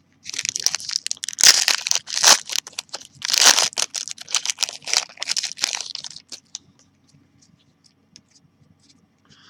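Plastic wrapper of a Panini trading-card pack crinkling and tearing in irregular bursts as it is forced open, the pack being a tough one to open. The rustling stops about six seconds in, leaving only a few faint ticks.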